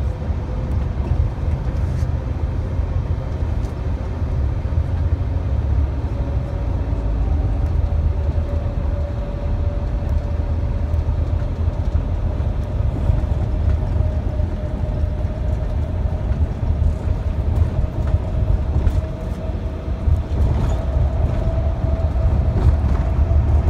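Motor coach running at highway speed, heard from inside the passenger cabin: a steady low engine and road rumble, with a faint whine that slowly rises in pitch.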